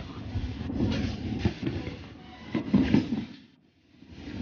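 Fireworks going off: an irregular run of heavy, rumbling booms and crackles, with a few loud reports. The sound cuts out briefly near the end.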